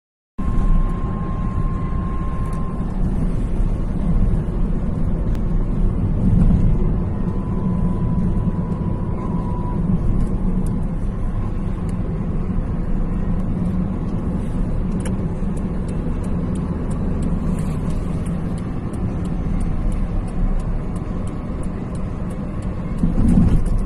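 Steady driving noise heard from inside a moving car's cabin: low tyre-and-road rumble with engine drone, with a faint regular ticking in the second half.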